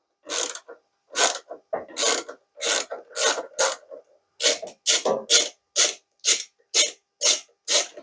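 Ratchet handle with a 10 mm socket clicking in short runs, about three a second with a brief pause near the middle, as it loosens the centre nut of a washing machine's heating element.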